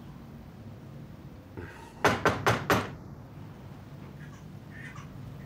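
Four quick knocks on a house's front door, about a quarter of a second apart.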